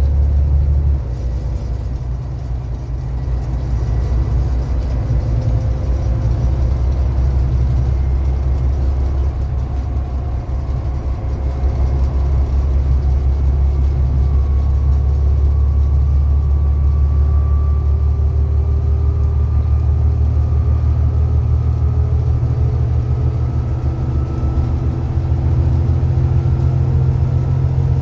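Volvo B7TL double-decker bus's six-cylinder diesel engine heard from inside the passenger saloon while the bus is under way: a deep steady drone that drops back about a second in, builds again and runs strong through the later part. A faint whine rises slowly over it in the second half.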